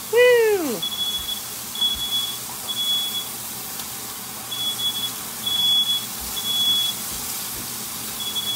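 Smoke alarm beeping a steady high tone in groups of three, each group followed by a pause, set off by smoke from meat frying in a pan. A short "Woo!" falling in pitch sounds right at the start.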